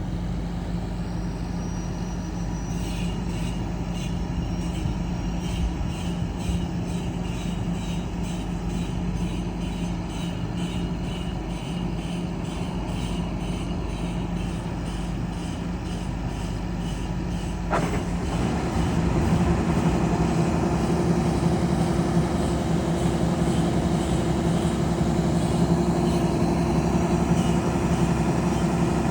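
Rice combine harvester running steadily. About two-thirds of the way in there is a click, and the machine grows louder with an added higher steady note.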